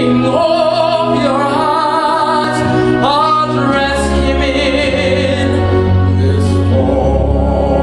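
Stage-musical singing: voices holding and gliding between notes with vibrato over an orchestral accompaniment, with low sustained bass notes coming in about four seconds in.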